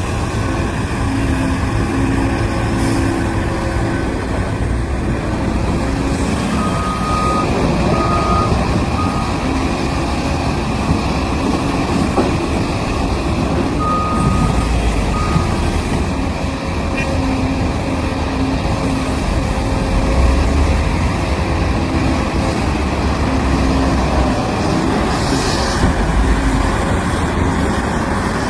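Heavy diesel mining equipment running steadily, a large excavator and haul trucks working close by, with a backup alarm beeping in two short runs, three beeps about a third of the way through and two about halfway.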